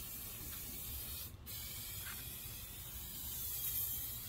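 Aerosol spray adhesive hissing steadily as it is sprayed onto a headliner backing board, with a short break about a second and a half in.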